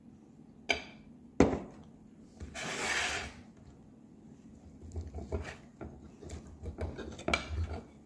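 A glass jar set down on a stone countertop with two sharp knocks, then a brief rustling rush, then a knife and fork scraping and clicking against a plate as pancakes are cut.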